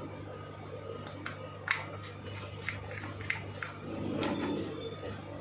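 Small screwdriver working screws into a plastic dome CCTV camera during reassembly: a run of light, sharp clicks and scrapes, then a brief rubbing of parts being handled about four seconds in, over a steady low hum.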